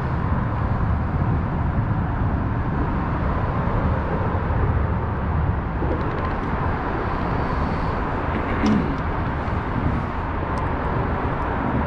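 Small Mercury outboard motor on a kayak running steadily at low speed.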